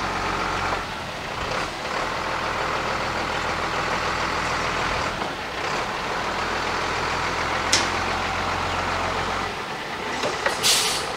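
International truck's DT466 diesel engine running steadily as the truck is moved a short way. Near the end the engine note drops away, followed by a short sharp hiss of air.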